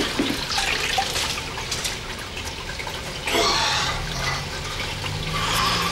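Water splashing and sloshing in a clogged, overflowing toilet bowl as it is cleared by hand, with a louder splash a little past halfway.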